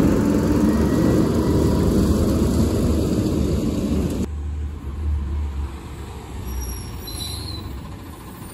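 Garbage truck engine running, with a loud, steady low rumble; the noisier sound above it drops away abruptly about four seconds in, leaving the engine rumble.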